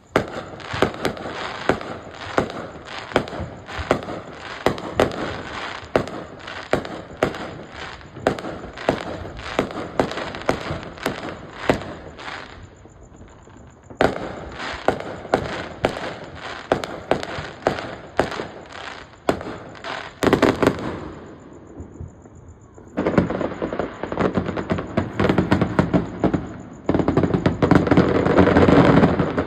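Fireworks going off: a steady run of sharp bangs, about two a second, with a couple of brief lulls. Near the end it thickens into a dense, louder barrage.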